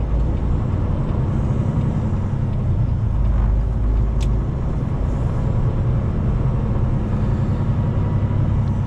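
2018 Freightliner semi truck running down the road, heard inside the cab: a steady low engine and road rumble. A single short click comes about four seconds in.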